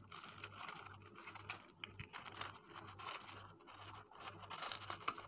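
Light rustling, crinkling and small clicks of hands handling soap-flower stems and the tissue paper packed into a small wicker basket.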